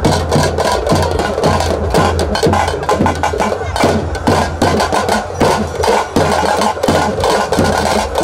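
Loud percussion music: rapid, dense drum strikes with sharp wood-block-like hits, over a steady low hum.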